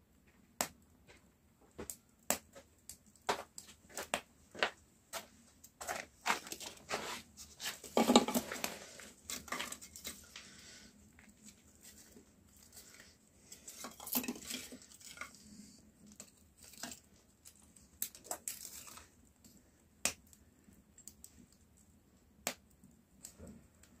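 Irregular light clicks and knocks with stretches of rustling or crinkling, as of objects being handled, loudest about eight seconds in.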